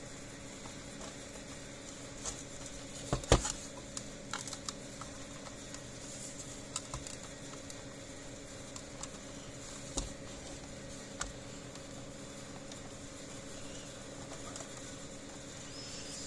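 Scattered small clicks and taps of plastic parts and wires being handled while a solar fence charger is put back together, with the loudest cluster about three seconds in. A steady low hum runs underneath.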